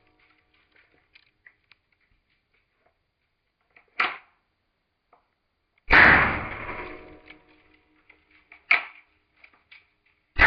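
Bruni Colt Single Action Army blank revolver firing a blank about six seconds in, a loud bang that trails off over a second or so with a ringing tone. Sharp short clacks come about four seconds in and again near nine seconds, typical of the single-action hammer being cocked, with faint clicks between. Another shot starts just at the end.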